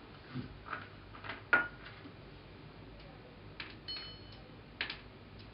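Walnuts being crushed into small pieces by hand over a small metal bowl: irregular cracks and clicks, the sharpest about a second and a half in.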